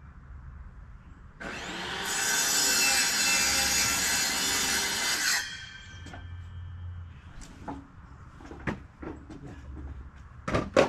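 Power saw cutting through wood for about four seconds, starting and stopping abruptly. Several knocks follow, with a sharp, loud one near the end.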